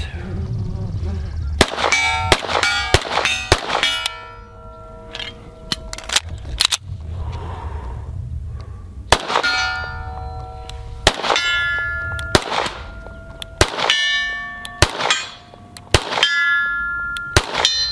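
Atlas Gunworks Erebus 2011 pistol firing a dozen or so shots at uneven intervals at steel plates 50 yards off. Many of the shots are answered by the steel plates ringing as they are hit.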